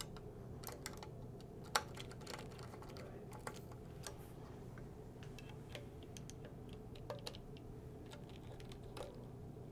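Faint, irregular small metal clicks of a hex driver working the tone arm's three locking screws, tightening them after the arm height (VTA) has been set; one louder click comes about two seconds in.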